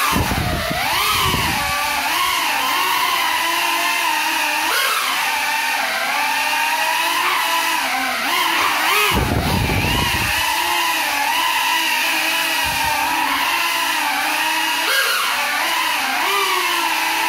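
Small FPV drone's motors and propellers whining, the pitch rising and falling constantly as the throttle changes, flown on broken propellers. A couple of low rumbling gusts come near the start and about nine seconds in.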